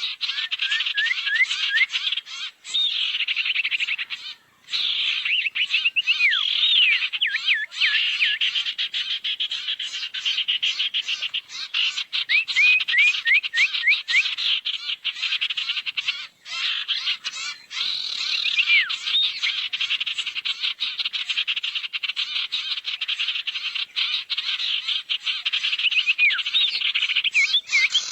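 Lure recording of sirtu birds calling: a fast, dense, buzzing trill with brief breaks. Clusters of clear whistled notes swoop up and down over the trill every few seconds.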